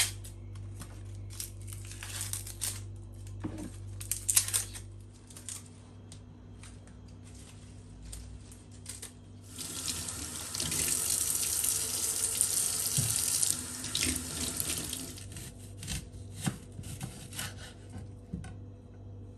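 Onion skin crackling and tearing as it is peeled by hand. Then a kitchen tap runs into a stainless steel sink for about five seconds as lettuce leaves are rinsed under it. Near the end a knife clicks through an onion onto a wooden cutting board.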